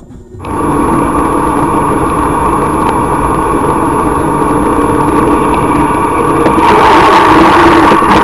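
Car engine and road noise heard from inside a moving car's cabin in traffic. It cuts in abruptly about half a second in, runs steadily, and swells louder near the end.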